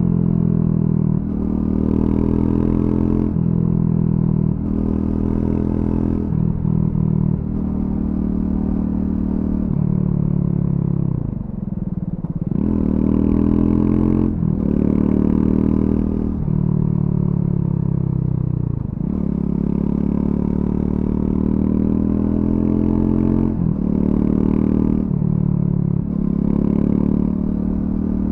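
Triumph Scrambler 400X's single-cylinder engine through its stock exhaust, pulling up through the gears with brief breaks at each shift. Twice it drops in pitch as the bike slows, near the middle and about two-thirds through, then climbs again.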